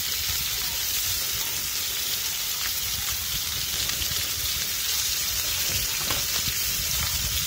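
Fish sizzling steadily as it cooks in a steel pot on a portable gas stove.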